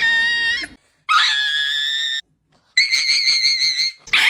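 Three long, high-pitched screams, each held steady and then cut off abruptly by a moment of complete silence.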